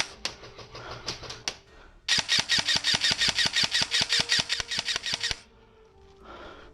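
Airsoft electric M4 rifle firing on full auto. A few fainter shots come in the first second and a half, then a steady burst of about three seconds, roughly ten shots a second, that cuts off suddenly.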